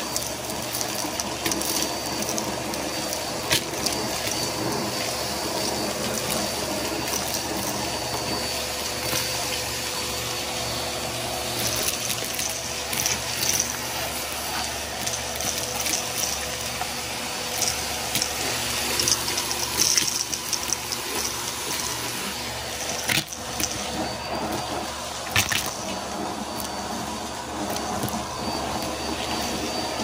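Vacuum cleaner running steadily while vacuuming a floor, with a few sharp clicks along the way.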